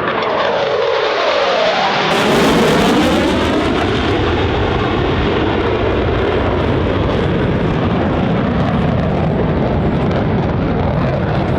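EA-18G Growler's twin General Electric F414 turbofans in a fast low pass: loud jet noise with a whooshing sweep that falls and then rises in pitch as the jet goes by. It is loudest about two to three seconds in and stays loud after.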